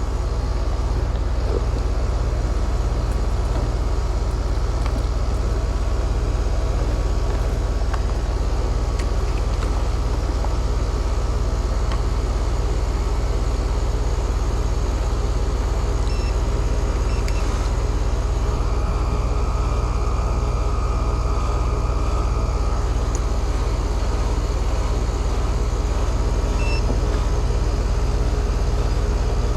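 Heat pump outdoor unit running steadily in cooling mode, its compressor and condenser fan giving a loud, even, low hum.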